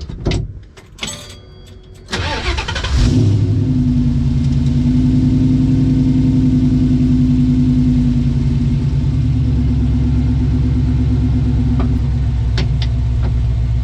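A few clicks, then the Mustang's Coyote 5.0 V8 cranks and fires about two seconds in and settles into a steady idle.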